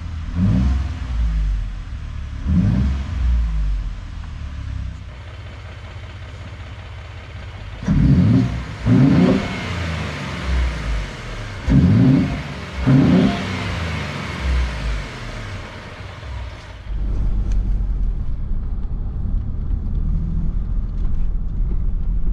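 2018 Ford Expedition's 3.5-litre twin-turbo EcoBoost V6, freshly flashed with a Whipple upgrade tune, blipped about six times, each rev rising and falling quickly. Near the end it settles into a steady low rumble.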